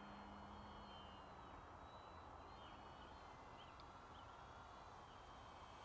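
Near silence outdoors, with a faint, distant hum from the Durafly Tundra V3 RC plane's electric motor and propeller in flight.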